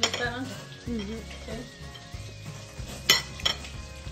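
A metal fork clicks twice against a ceramic plate about three seconds in, over soft background music. A short murmured voice comes in the first second and a half.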